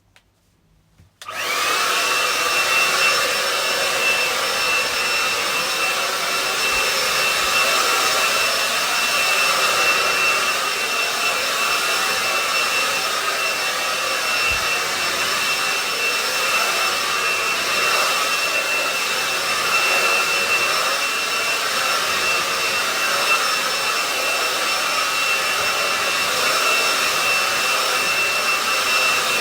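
Hand-held hair dryer switched on about a second in and running steadily, its blowing noise carrying a steady high whine.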